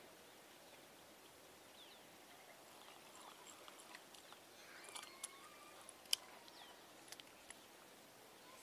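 Quiet outdoor ambience, close to silence: a few faint short chirps and several small clicks, the sharpest about six seconds in.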